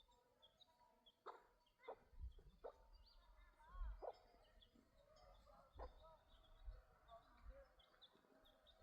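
Faint animal calls: a scatter of short, quickly falling chirps, with small high chirps coming more often near the end.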